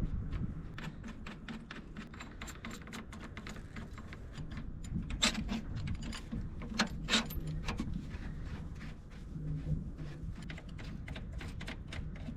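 Irregular light metallic clicks and clinks of hand work on an engine's rocker arm assembly, with a few louder clanks around the middle, over a low steady hum.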